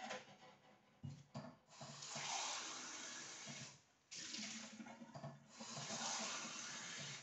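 A couple of short knocks, then a kitchen tap running in long stretches, stopping briefly about four seconds in and running again: water drawn to make coffee.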